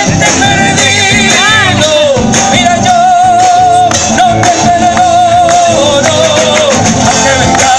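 A band playing a song live: a singer holds long notes with a wavering vibrato over a full band accompaniment.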